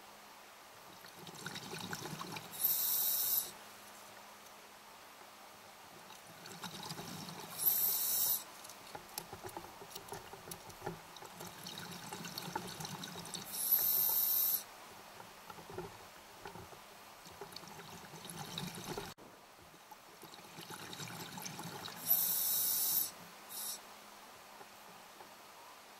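Scuba diver breathing through a regulator underwater: four short, sharp hisses of inhalation, five to eight seconds apart, with the bubbling gurgle of exhaled air between them.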